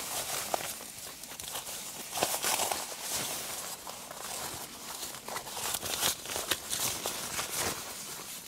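Irregular rustling and crinkling, as of nylon fabric or food wrapping being handled and shifted, with a few sharper clicks and no steady tone.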